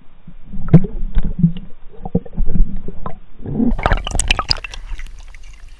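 Pool water sloshing and gurgling against a camera at the water's surface as a Siberian husky pushes its muzzle in to grab a treat, with sharp knocks and clicks. A louder burst of splashing comes about four seconds in as the dog lifts its head out of the water.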